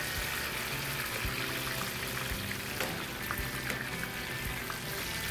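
Battered banana fritters deep-frying in hot oil in their second fry, a steady sizzle. Background music plays underneath.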